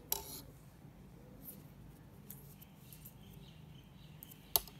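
Metal knitting needles clicking together as stitches are worked: a sharp click at the start and a louder one near the end, with a few faint ticks between them over a low steady hum.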